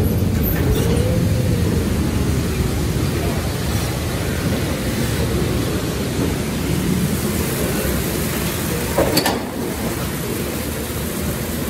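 Steady rumbling of the Calico Mine Ride's train cars rolling through a rock tunnel, with one sharp knock about nine seconds in.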